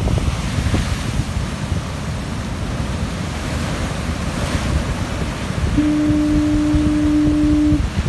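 Heavy surf breaking and churning over rocks. About six seconds in, a foghorn sounds one steady low blast lasting about two seconds.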